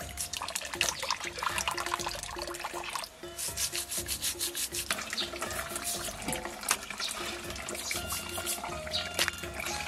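A brush scrubbing crayfish clean, in rapid scratchy strokes one after another.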